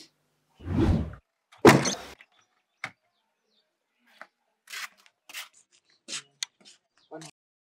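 A door being opened and shut: a heavy thump, then a louder bang and a latch click. A string of short light steps follows, roughly two a second.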